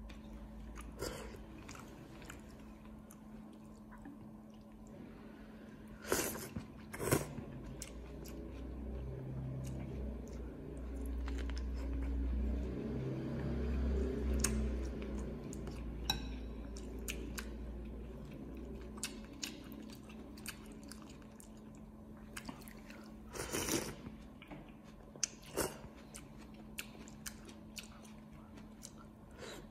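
A person chewing mouthfuls of noodle soup close to the microphone, with a few short, sharp, louder sounds from the spoon and chopsticks in between. A faint steady hum runs underneath.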